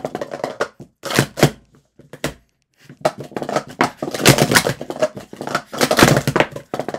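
Clear plastic Cheetah sport-stacking cups clicking and clattering in rapid runs as they are stacked up and brought down on a stacking mat, with a short lull about two seconds in.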